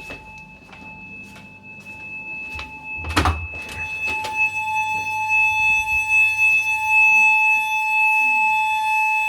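Footsteps through a flat, a door opening with a knock about three seconds in, and then the building's fire alarm, a steady electronic tone, comes through much louder. Before the door opens, the alarm is only faint.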